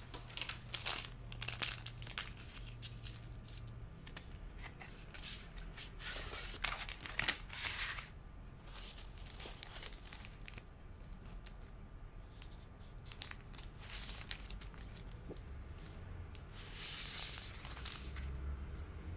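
Thin plastic packaging and a matte screen-protector film crinkling and rustling as they are handled, in irregular bursts with small clicks.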